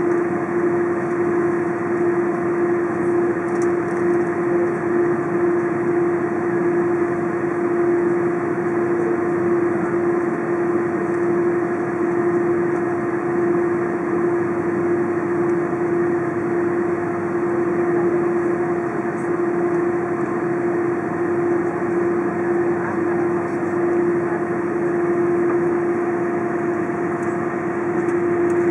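Steady cabin hum inside an Airbus A330 rolling on the taxiway: engine and air-conditioning noise with one constant tone running through it.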